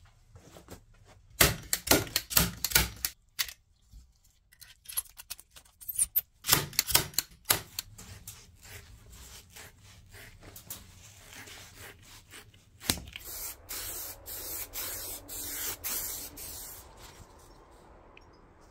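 Two bursts of sharp, rapid clicks, typical of a staple gun fixing upholstery fabric to the pram's wooden base. Later, a rustling hiss of scissors cutting through thick upholstery foam.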